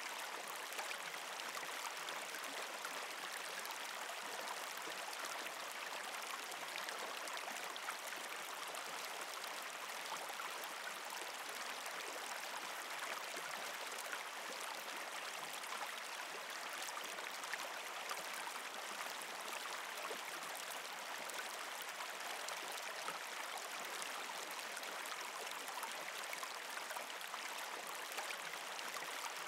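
Steady, even sound of flowing, trickling water.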